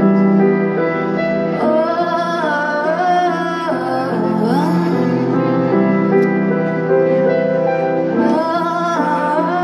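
A woman singing live over held keyboard chords from a Nord Electro 5 stage keyboard. Her sung phrases come and go over the steady chords, with one about two seconds in and another near the end.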